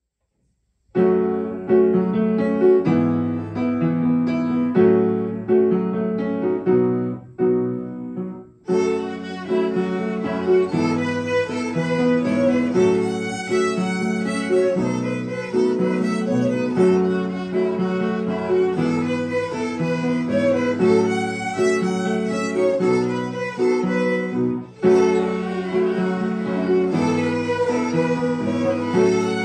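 A group of violins playing a tune together, starting about a second in; the sound grows fuller about nine seconds in, with a brief break shortly before the end.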